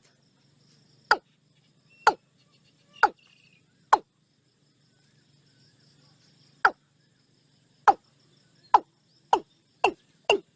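A series of short, sharp sounds, each dropping quickly in pitch, about one a second, with a pause in the middle, then coming faster, about two or three a second, near the end. A faint high insect-like chirring sits underneath.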